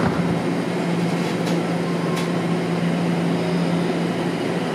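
Inside a Toronto Rocket subway car pulling out of a station: a steady low hum under the cabin noise, with a couple of sharp clicks as the train starts to move.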